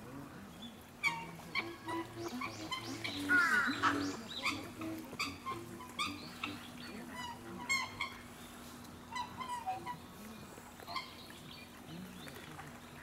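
Black swans calling: a string of short honking calls, with one longer arched bugle call about three and a half seconds in.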